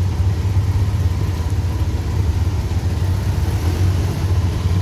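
Motor vehicle engine running steadily, a constant low drone with no change in pitch.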